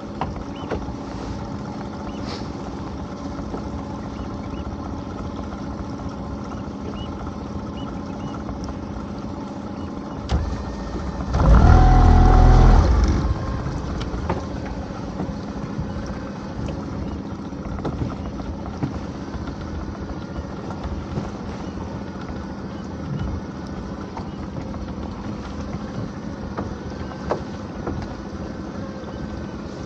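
A small boat's engine idling with a steady hum. About eleven seconds in, a loud rushing burst lasts for over a second.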